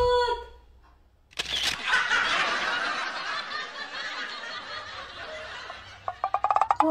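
A sudden sound effect about a second and a half in: a sharp hit followed by a long fading hiss. Near the end comes a woman's quick snickering laugh.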